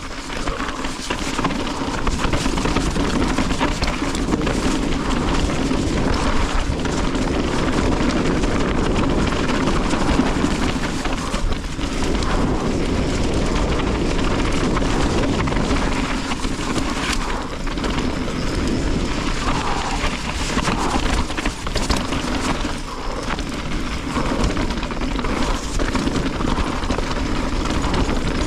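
Mountain bike riding fast down a rocky trail: a continuous rush of wind and tyre noise, with frequent knocks and rattles as the bike goes over rocks.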